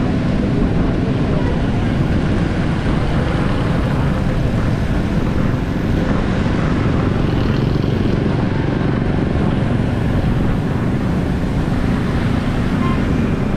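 Steady traffic noise from moving along a waterlogged road among motorcycles: motorcycle engines running and tyres going through shallow standing water.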